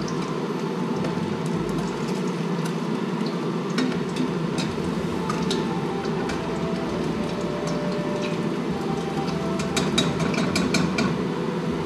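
Tempura-battered garfish deep-frying in hot oil, with scattered crackles and pops over a steady low hum.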